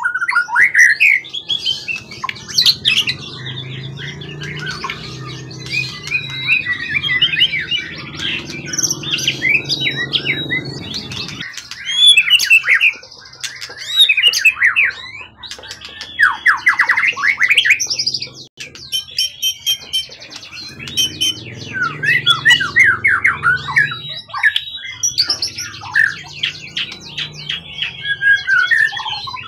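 A wild-caught songbird singing loudly and continuously: a varied, fast-changing song of chirps, trills and whistled phrases with only brief pauses.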